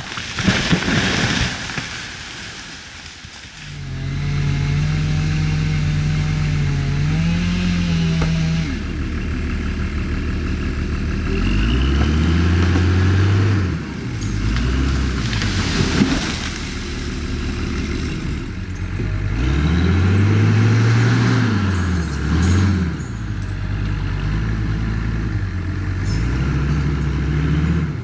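A loud noisy clatter for the first two seconds, then a heavy logging machine's engine running and revving up and down several times, its pitch rising and falling in long sweeps.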